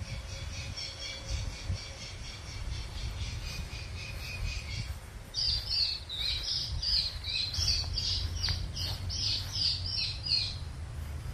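Birds calling in a quick run of chirps, which become louder and harsher about halfway through, over a steady low rumble.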